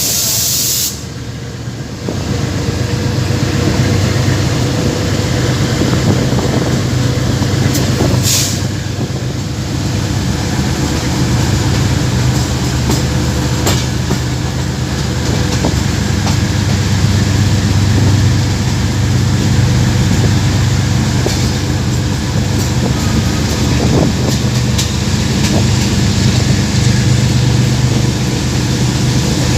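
GEU-20 (GE U20C) diesel-electric locomotive under way, its engine giving a steady low drone over the running noise of the train. A hiss cuts off about a second in, and a short hiss comes about eight seconds in.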